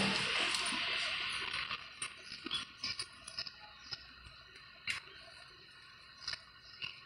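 Music fading out over the first second or two. After that come faint, scattered clicks and taps, about eight at irregular intervals, as a car power window regulator's motor, plastic wiring connector and cable are handled.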